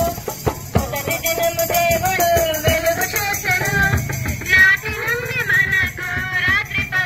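Voices singing a devotional song over a steady percussion beat, with shaken rattle-like percussion.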